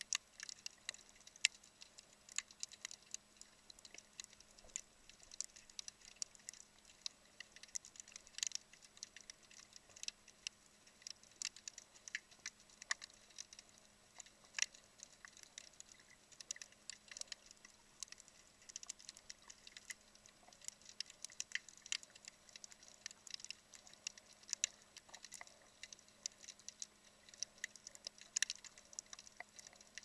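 Underwater crackling on a rocky reef: a dense, irregular stream of sharp clicks and snaps, the sound snapping shrimp make, over a faint steady hum.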